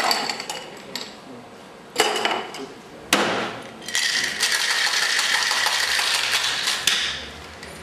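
Two sharp knocks from a cocktail shaker, then the shaker shaken hard for about three seconds, a steady dense rattle that stops abruptly, shaking the cocktail with egg white.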